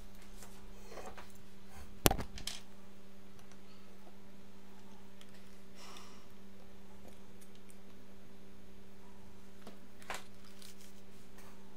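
Handling noise from a laptop display lid being brought to the bench and positioned. There is a sharp knock about two seconds in with a short rattle after it, some rustling, and a softer knock near the end, all over a steady low electrical hum.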